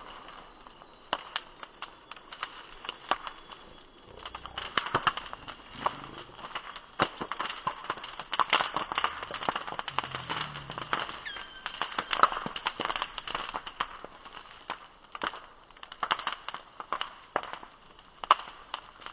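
Campfire crackling: burning wood giving irregular sharp pops and snaps, thickest in the middle stretch.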